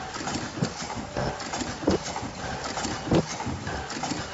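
Automatic disposable mask making machine running, with a heavy clack repeating about every second and a quarter and lighter rattling and clicking between.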